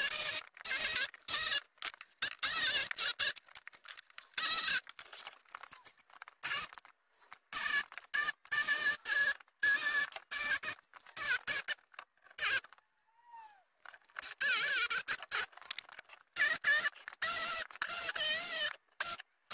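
Jigsaw cutting the sink opening in a kitchen worktop, running in short choppy stretches with brief gaps and a wavering motor whine.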